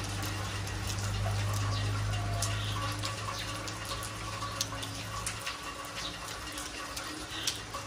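Steady rain falling on a paved yard and nearby roofing, with sharp close drips tapping through it. A low steady hum underneath stops about five seconds in.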